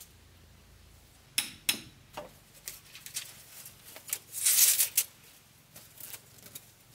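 A string of light knocks and taps, two sharper ones about a second and a half in, then a scraping noise lasting about half a second, the loudest sound, near the middle, followed by a few faint taps.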